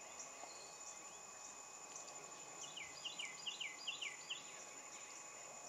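A steady, high insect drone from the wetland, and from about halfway in a bird calls a quick run of about nine short, falling notes lasting a couple of seconds.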